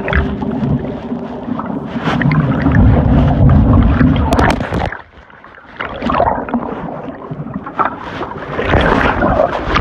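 Loud churning floodwater with wind buffeting the microphone, cutting out sharply for under a second about halfway through before returning.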